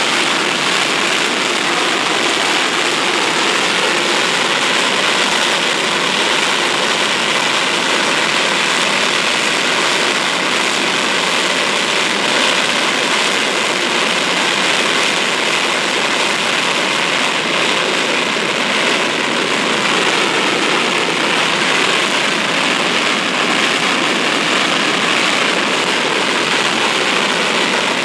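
GE J79 turbojet engine running steadily at about idle, heard from far off: an even, continuous rushing jet noise that neither rises nor falls.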